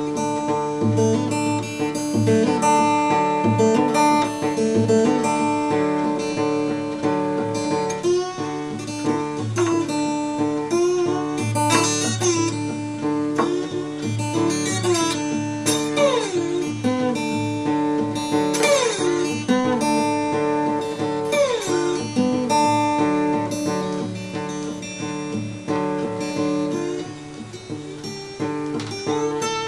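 Acoustic guitar playing slide blues: ringing notes over repeated, steady bass notes, with several sliding pitch glides, mostly falling, in the middle.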